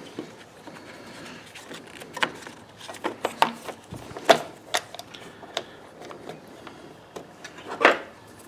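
Air filter housing being fitted back onto a Briggs & Stratton lawn mower engine: scattered clicks and knocks of the parts being handled and seated, with louder knocks about four and eight seconds in.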